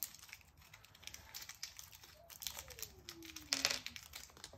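Light rustling and small clicks of hands handling the small mounting screws for the device, with a louder rustle about three and a half seconds in. A faint whine falls steadily in pitch over about two seconds near the middle.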